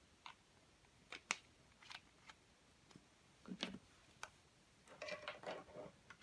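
Clear slime being worked by hand: scattered sticky pops and clicks, then a short run of crackling near the end.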